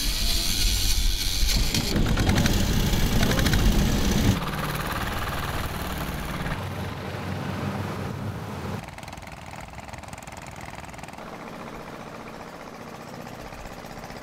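Small single-cylinder boat engine on a long-tail propeller shaft running with a fast knocking beat, loud over the first four seconds, then quieter after about four seconds and again after about nine.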